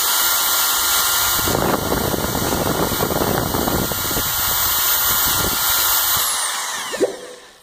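L5 electric paddle mixer running steadily, its paddle churning drywall joint compound in a bucket. About six seconds in it is switched off and its whine falls away as the motor winds down, followed by a single knock.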